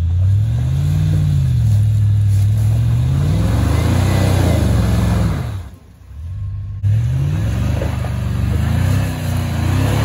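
Land Rover LR3's engine revving up and down again and again under load as the truck crawls up over rocks on a steep trail. The sound drops out suddenly for about a second a little past the middle, then comes back.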